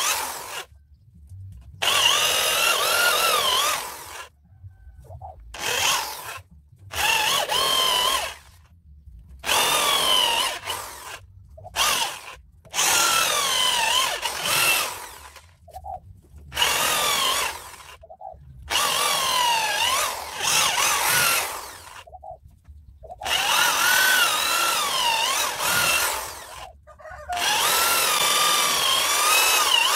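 Hand-held electric power tool cutting into wood in about a dozen bursts of one to three seconds, with short pauses between them. The motor's whine wavers in pitch as it bites into the wood and eases off.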